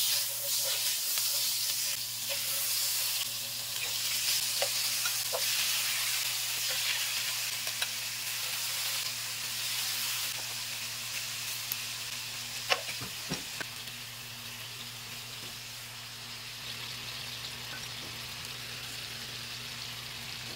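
Marinated pork ribs sizzling as they fry in a little oil in a hot nonstick pan, with a few sharp clicks of metal tongs as pieces are laid in and moved. The sizzle is strongest in the first half and eases off somewhat later, with a steady low hum underneath.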